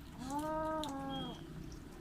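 A cat meowing once: a single drawn-out call a little over a second long, rising in pitch at the start and dropping slightly before it ends.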